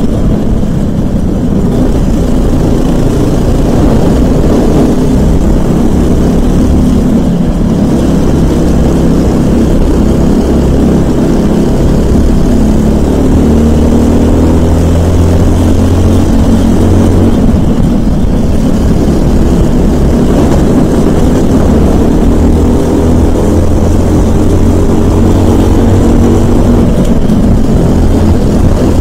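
Briggs & Stratton LO206 single-cylinder four-stroke kart engine running hard, heard onboard, its pitch rising and falling over and over as the kart accelerates down the straights and slows for corners, with other LO206 karts running close by.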